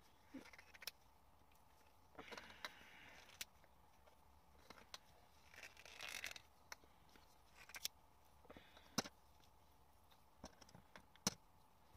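Quiet handling of small liquid-lipstick tubes: scattered sharp clicks, the loudest about nine and eleven seconds in, and a few short rustles.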